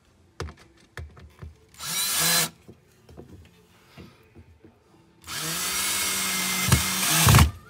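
Cordless drill driving a screw through a metal electrical box into plywood: a short run about two seconds in, then a longer steady run of about two seconds near the end that finishes with sharp knocks. Light clicks and taps of the box being handled come first.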